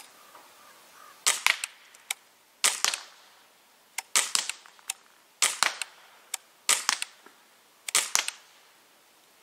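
Daisy Model 74 CO2 BB rifle firing six shots at an even pace, about one every 1.3 seconds, each a short, sharp crack.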